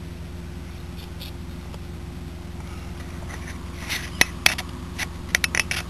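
Handling noises as hands fit a model rocket onto its launch pad rod: a quick run of sharp clicks and scrapes of cardboard and plastic starting about four seconds in, over a steady low hum.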